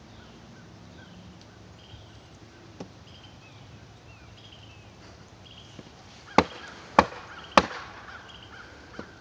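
Wooden 2x4 braces being whacked down on a post: three sharp blows on wood about half a second apart, a little over six seconds in, with a fainter knock earlier and a small one near the end.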